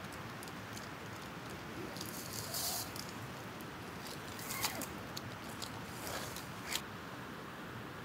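Small handling noises: a few short, crisp crinkles and clicks over a steady hiss.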